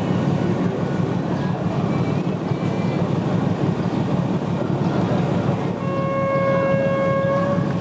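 Steady low rumble of a standing diesel train, then a diesel locomotive horn sounding one held note for about two seconds near the end.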